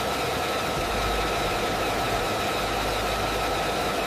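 Fighter jet engine running steadily on the ground, a constant high turbine whine over a rushing noise, with a deeper rumble coming in about a second in.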